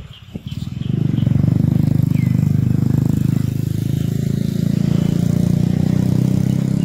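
A small engine starts up loud about a second in and runs at a steady pitch and level, like a motorcycle running close by. Faint bird chirps sound above it.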